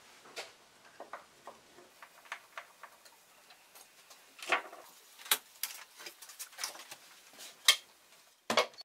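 Scattered, irregular clicks and light knocks of wooden parts and a jig being handled on a workbench as the jig is taken off a cut wooden oval. The sharpest knock comes near the end.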